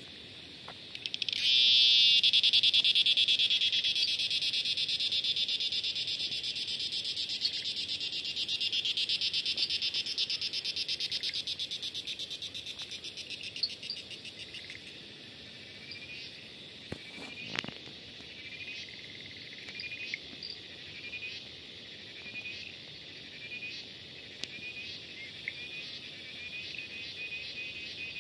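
Loud insect chorus: a very rapid pulsing buzz that starts abruptly about a second in and slowly fades. Later come short rising chirps repeating about once a second, with a few faint clicks and one knock about two-thirds of the way through.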